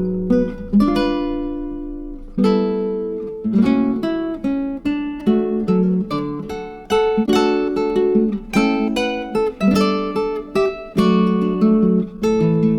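Background music: acoustic guitar strumming and picking chords, each stroke ringing out.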